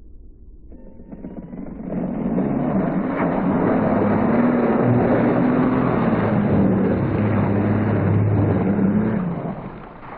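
RC snowmobile skimming across open water, its motor whirring and its track churning up spray. The sound swells about two seconds in, stays loud and steady for several seconds, then fades near the end.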